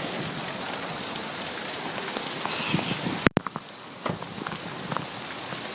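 Heavy rain falling steadily, a dense hiss of water with scattered individual drop ticks. There is a sharp click and a brief break in the sound just over three seconds in.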